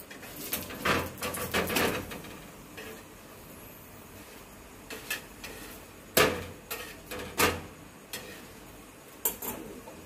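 A metal spatula clinking and scraping against an iron tawa as a stuffed flatbread is lifted and turned. The knocks come in short clusters, about a second in and again from about six to seven and a half seconds in.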